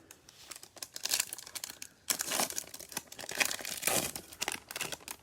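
Foil wrapper of a Bowman Chrome trading-card pack being torn open and crinkled, in irregular rustling bursts.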